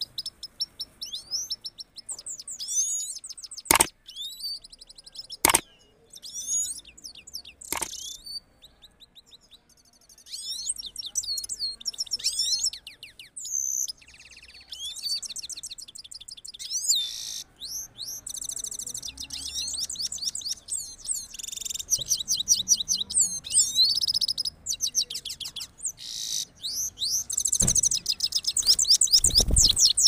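Himalayan (grey-crowned) goldfinch singing: long runs of fast, high twittering song with trills, broken by short pauses. A few sharp clicks come in the first eight seconds, and a low rumble builds near the end.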